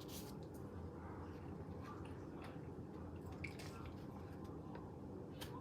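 Faint scattered clicks and light handling noises over a low steady room hum.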